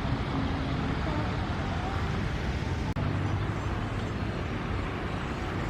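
Steady outdoor background rumble and hiss with faint distant voices, broken by a brief dropout about three seconds in.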